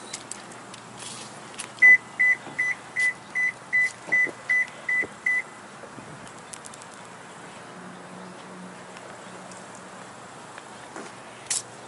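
An electronic beeper sounding a run of about ten short, high beeps at one steady pitch, about two and a half a second, stopping after about three and a half seconds.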